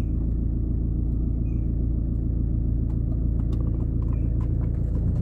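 Car engine and road rumble heard from inside the cabin as the car moves slowly along a tarmac track: a steady low hum.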